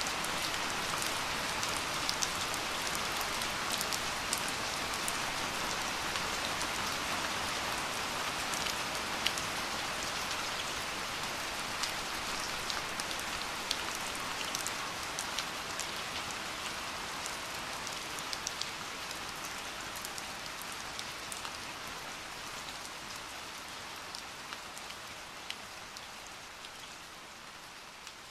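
Steady rain falling, a dense patter of small sharp drops, slowly fading out.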